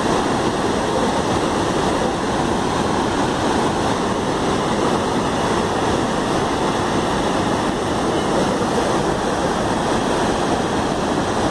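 Muddy floodwater rushing: a torrent pouring down a hillside onto rocks and into a swollen river, a steady, loud rush of water.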